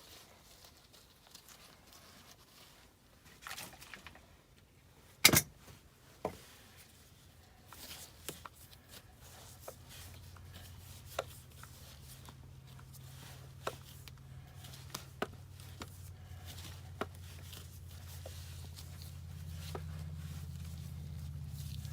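Scattered clicks and knocks of something being handled, with one sharp knock about five seconds in, and a low steady hum that comes in around nine seconds and grows louder.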